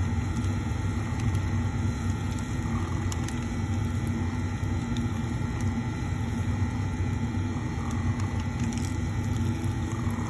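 Laboratory high shear mixer running steadily at 2500 RPM, its shaft spinning in a canister of asphalt binder to blend in an additive, giving a continuous low hum.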